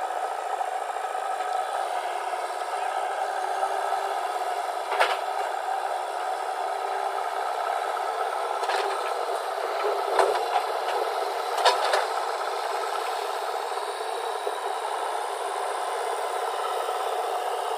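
Heavy machinery running steadily, with a few sharp clanks and rattles, about five in all, between roughly 5 and 12 seconds in.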